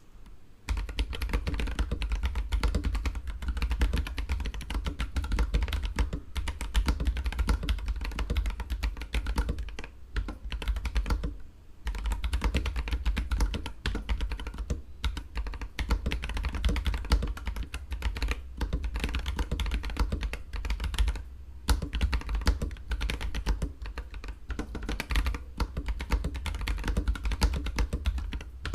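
Fast typing on a NextTime 75 mechanical keyboard fitted with Akko Ocean Blue switches: a dense, continuous run of key clacks starting about a second in, broken by two brief pauses.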